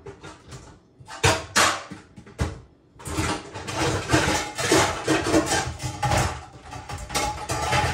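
Metal kitchenware clattering as a strainer is fetched from among pots and pans: a few separate knocks in the first couple of seconds, then about five seconds of continuous rattling and clanking.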